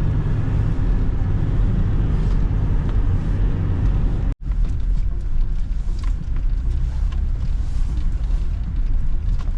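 Car cabin noise while driving: a steady low rumble of engine and road, with a momentary dropout a little before halfway.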